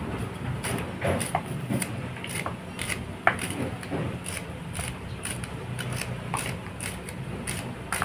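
A knife slicing through leek stalks held in the hand, making short crisp cuts at an uneven pace, over a steady low hum.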